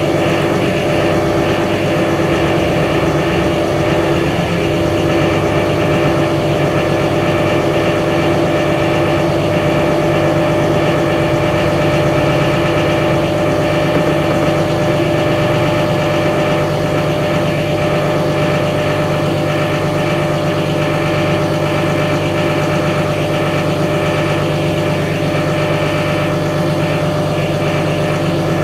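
Caterpillar 330F excavator's diesel engine running at a steady, even speed, with no revving or load changes.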